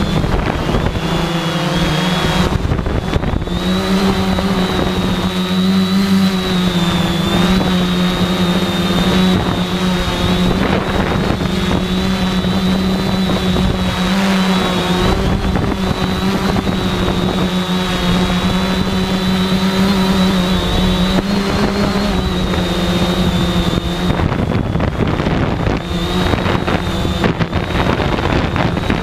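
Quadcopter drone's electric motors and propellers buzzing steadily, heard close up from the drone itself: a strong hum with a thin high whine above it, the pitch wavering slightly as the drone manoeuvres.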